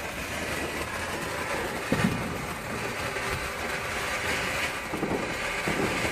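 Garden firework burning with a continuous hissing crackle, with a sharper pop about two seconds in.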